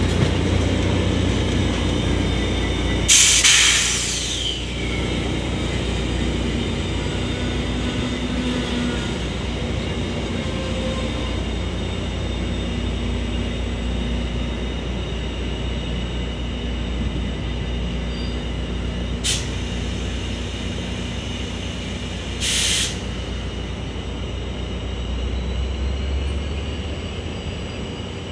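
Diesel locomotive of an exo commuter train running with a steady low engine rumble as the train moves past and away. A loud burst of air hissing comes about three seconds in, and two short hisses come later on.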